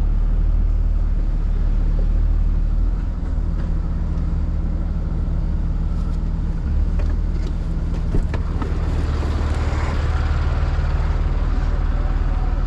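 Tow truck engine running steadily with a low drone, and a single sharp knock about eight seconds in.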